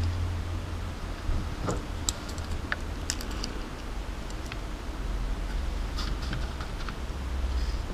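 Light, scattered clicks and rustles of hands picking up and handling a soldering iron and solder wire on a workbench, over a low hum.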